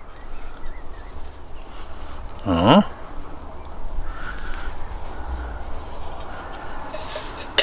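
Small songbirds chirping over and over in a high pitch, with one louder, short, pitched call about two and a half seconds in.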